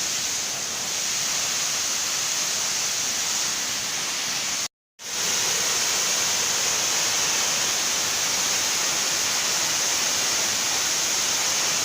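Waterfall rushing steadily, a dense hiss of falling water that cuts out completely for a moment about five seconds in, then carries on.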